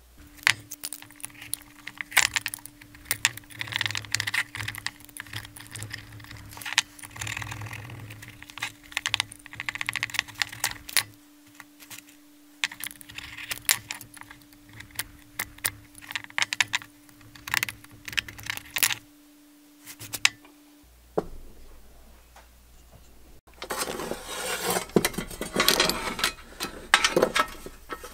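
Hand-work sounds on a workbench: short clicks, scrapes and metal clinks as a rubber boot is worked and cut off its metal frame. After a break near the end, rapid clicking and rattling from a ratchet wrench being worked on a steel tractor dash panel.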